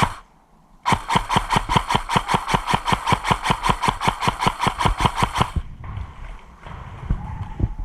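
Airsoft gun firing one long full-auto burst of evenly spaced sharp shots, about eight a second, for roughly four and a half seconds. It is followed by quieter rustling and footsteps.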